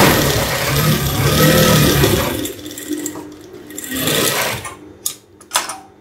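Gemsy industrial single-needle lockstitch sewing machine stitching a strip of fabric in short bursts, a test run after its shuttle timing has been reset, with the stitches forming properly. Near the end come two sharp snips of scissors cutting the thread.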